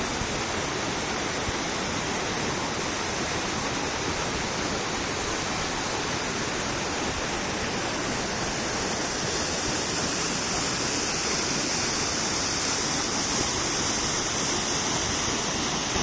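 Natural waterfall: a steady rush of falling, splashing water, its hiss growing slightly brighter about halfway through.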